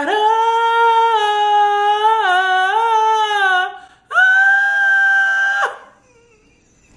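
A woman singing a long held note for about three and a half seconds, its pitch wavering slightly in the middle, to see how long she can hold it. After a short break she holds a second, higher note for about a second and a half, which cuts off sharply.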